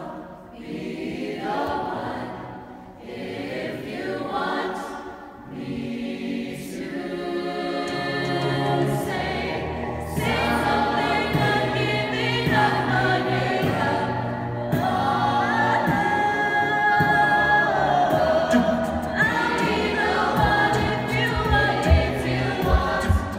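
A mixed vocal ensemble singing in harmony into handheld microphones, with sustained chords over a low bass part that enters about a third of the way in. The singing grows louder through the passage.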